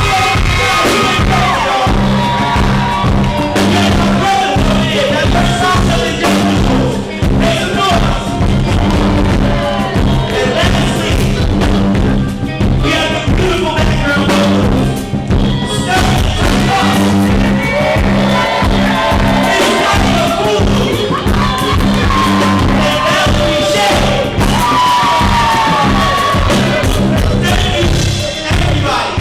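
Live band music with a vocalist singing over it, loud and steady, with a sustained bass line underneath.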